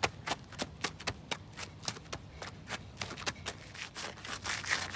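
Sneakers tapping and scuffing on asphalt in a steady dance rhythm, about three short taps a second.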